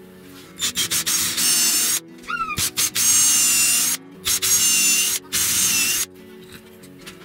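Plywood sliding block pushed back and forth along its plywood guide by hand: loud wood-on-wood scraping strokes of up to about a second each, some with a faint squeak, over background guitar music. This is a hand test of whether the freshly assembled slide mechanism moves freely.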